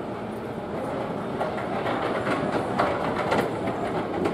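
Casino floor din from slot machines and a coin pusher: a steady mix of machine jingles and clatter, with scattered clicks in the second half.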